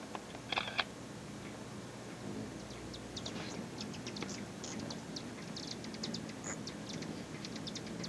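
Hummingbirds at a feeder giving rapid, high, short chips and twitters, thickest in the second half. Two louder sharp notes come about half a second in.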